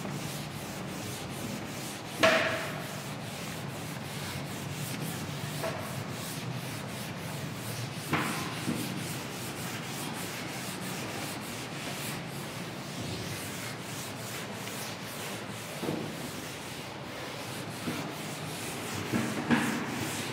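Chalkboard duster wiping a blackboard: a steady dry rubbing, with a few sharp knocks about 2, 8 and 16 seconds in.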